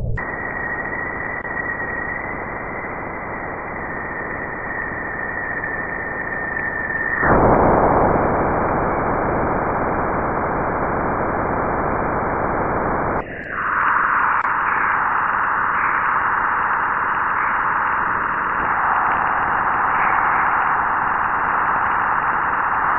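Steady static-like hiss with a thin high tone that stops about seven seconds in. The hiss gets louder there, then changes again about thirteen seconds in, turning thinner and brighter.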